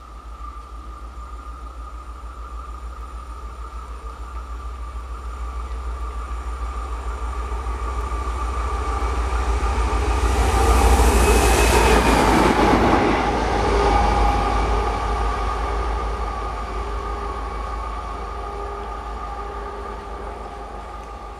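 Diesel locomotive approaching and passing: a low, regularly pulsing engine drone grows steadily louder, peaks with a loud rush of engine and wheel noise as it goes by about ten seconds in, then fades away.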